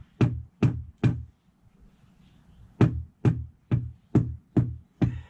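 Mallet tapping a Pennsylvania bluestone flagstone down into its mortar bed, setting the stone to level and pitch. The knocks are sharp and deep: three about half a second apart, a short pause, then six more at about two a second.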